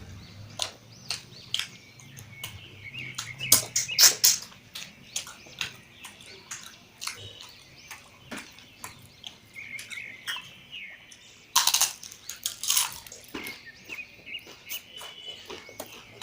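Eating sounds of mutton curry and rice: wet chewing and lip-smacking in an irregular run of sharp clicks, loudest about four seconds in and again around twelve seconds.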